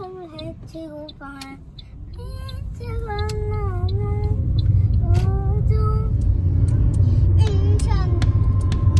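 A young child singing a tune in short phrases with some long held notes, over car road noise that grows louder from about two seconds in.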